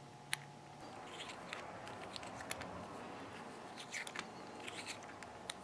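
Faint, scattered clicks and light scraping as a steel screw-down watch case back is turned by hand onto the case threads.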